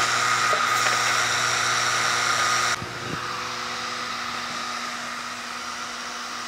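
Steady whir and air hiss of the Sculpfun S10 laser engraver's small air-assist compressor. About three seconds in it drops abruptly to a quieter hum, with a soft knock just after.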